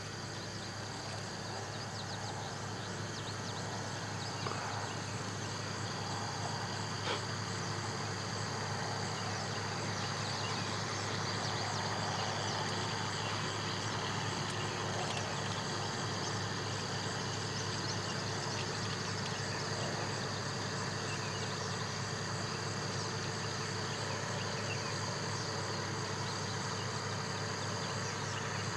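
A steady chorus of insects with continuous high trilling and chirping, over a low steady hum.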